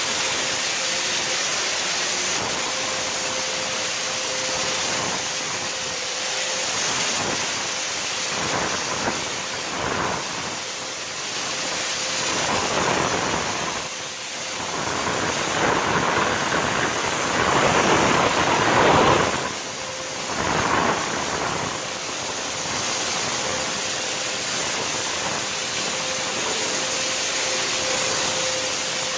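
Electric mist sprayer running: a steady hiss of spray with a faint even hum, growing louder in the middle and then settling back.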